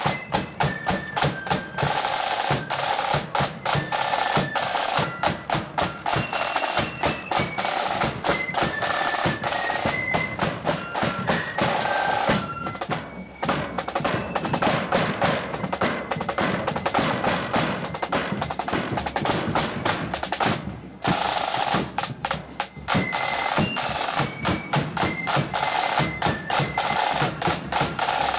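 Marching flute band's drum corps playing: rapid snare-drum beats and rolls with a bass drum under them, and a melody of high flute notes over them. The drumming stops briefly twice, near the middle and about two-thirds of the way through.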